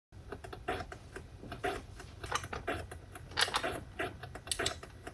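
Commodore 1541-II floppy disk drive loading a game: a steady low motor hum under irregular mechanical ticking and clicking from the drive mechanism.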